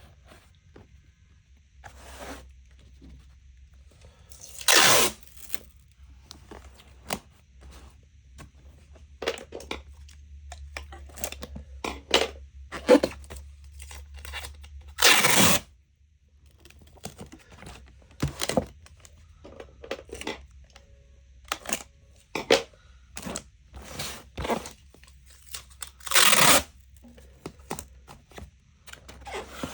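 A series of short, irregular tearing and crinkling scrapes, the loudest about five, fifteen and twenty-six seconds in, over a faint low hum.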